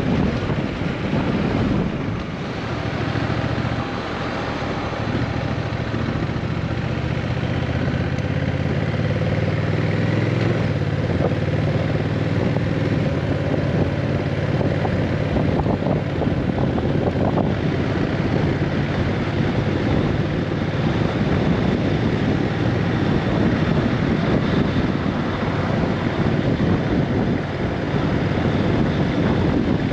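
Honda Rebel 1100 DCT's parallel-twin engine running steadily while riding, with wind rushing over the microphone.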